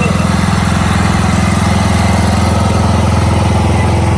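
Small engine of a kids' train ride running steadily at an even speed, loud and close.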